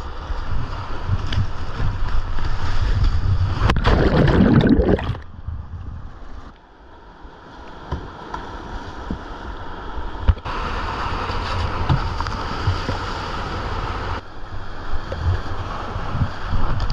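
Whitewater rushing and splashing around a kayak working a river hole, with wind buffeting the microphone. A loud surge of splashing comes about four seconds in. The sound then drops away for a moment and builds again.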